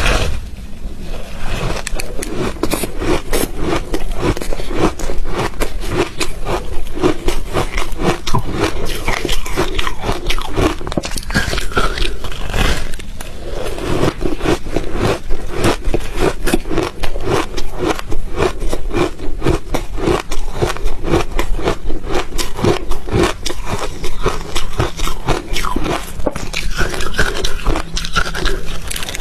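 Ice being bitten and chewed close to the microphone: a dense run of sharp cracks and crunches, with a brief lull about thirteen seconds in.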